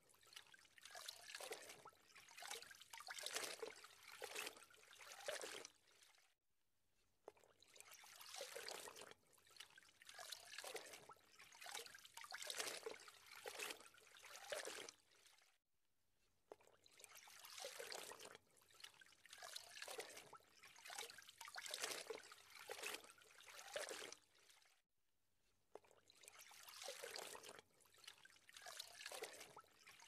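Water trickling and gurgling in uneven surges, with a short drop-out about every nine seconds where the same stretch of sound starts over, as in a repeating loop.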